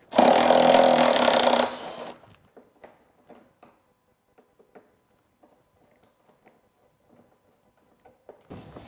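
A power drill runs for about a second and a half, spinning out an air box mount fastener, then winds down. Faint clicks and taps of parts being handled follow.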